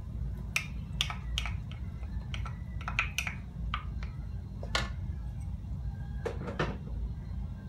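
Wooden spoon clicking and tapping against a cup and a non-stick pan as thick tomato ketchup is scraped out of the cup into the pan: scattered short knocks, a few close pairs, over a steady low hum.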